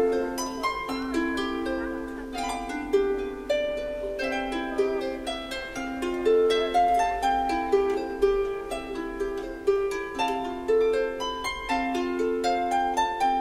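Music: a flowing melody of quick plucked string notes, each ringing briefly and dying away, over a lower accompanying line.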